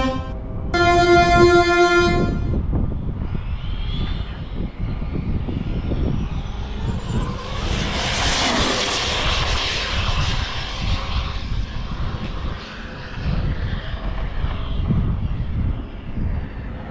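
A 1/7-scale electric RC speed-run car makes a top-speed pass. Its motor whine and tyre hiss build as it approaches, peak about eight or nine seconds in, then fade away. A held tone sounds about a second in, and wind rumbles on the microphone throughout.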